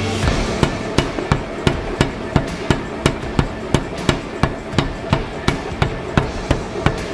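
Pneumatic power hammer striking hot steel between its dies: an even, steady run of sharp blows, about three a second.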